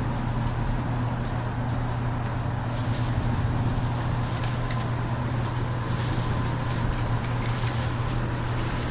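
Steady rain falling, with a constant low hum under it.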